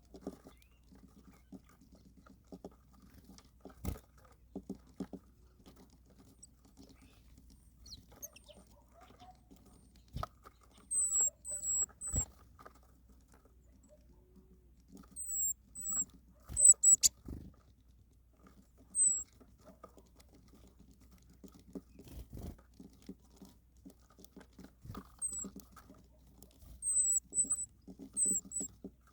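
Small birds feeding: soft, irregular pecking and pattering at food, with short, very high chirps in little clusters now and then.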